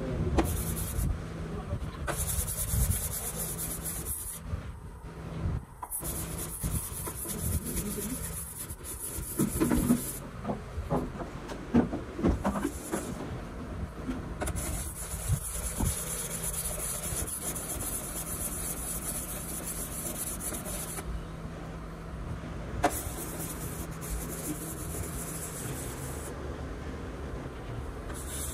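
A small metal part being hand-lapped on a flat steel plate with abrasive paste: a gritty scraping rub that goes on unbroken, over a steady low hum.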